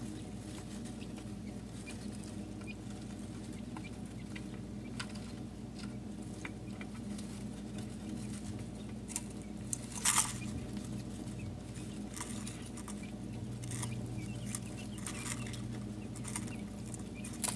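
Day-old quail chicks moving about, with scattered small clicks and faint peeps and a louder scuffle about ten seconds in, over a steady low hum.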